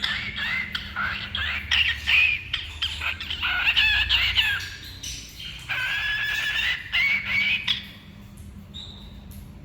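Small parrots chattering with many quick overlapping chirps and squawks, including a longer drawn-out call, dying down about two seconds before the end.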